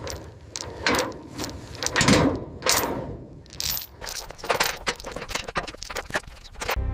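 Old car body being hauled, its rusty metal creaking, clanking and knocking in quick succession. There are a couple of heavier thuds in the first two seconds or so.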